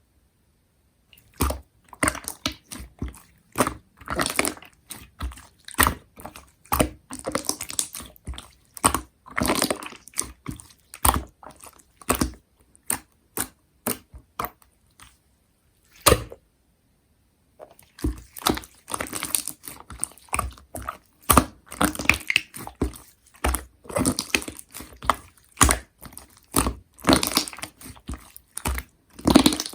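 Slime being squeezed, folded and pressed by hand: a rapid, irregular run of sticky clicks, pops and crackles, with a short pause about halfway through.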